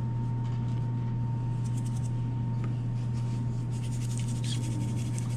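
Hands rubbing and patting flour onto a raw fish fillet on a plastic cutting board: soft, scratchy rubbing that comes and goes, over a steady low hum and a faint steady high tone.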